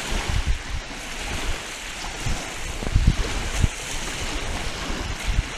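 Wind gusting across the microphone in low, irregular buffets over the steady wash of small lake waves, with the strongest gust about three seconds in.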